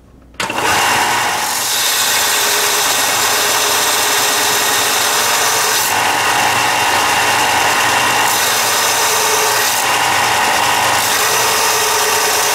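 Ryobi BD4601G belt sander running, its abrasive belt grinding the tip of a steel drill bit held in a sharpening jig and throwing sparks. The noise starts suddenly about half a second in and then holds steady, with small changes every couple of seconds as the bit bears on the belt.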